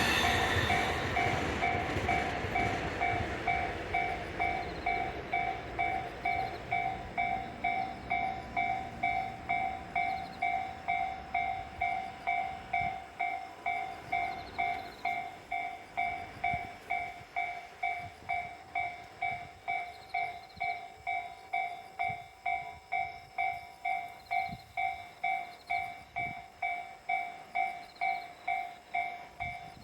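Japanese level-crossing warning bell ringing steadily, about one and a half strokes a second, signalling that the crossing is closed. A passing train's rumble fades away over the first ten seconds or so.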